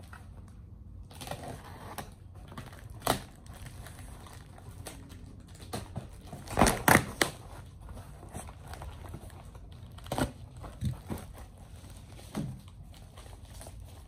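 Cardboard parcel being opened: packing tape slit and torn and the box flaps pulled apart, irregular crinkling and ripping with sharp knocks, loudest in a cluster about seven seconds in.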